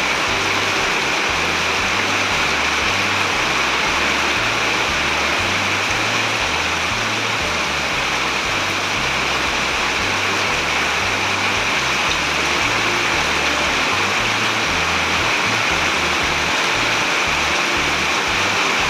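Heavy rain pouring down in a steady, unbroken hiss, with background music's low bass notes underneath.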